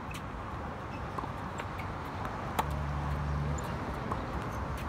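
Tennis ball being hit back and forth on a hard court: a string of sharp racket strikes and bounces, the loudest a little past halfway. A brief low hum sits under the knocks for about a second from just past halfway.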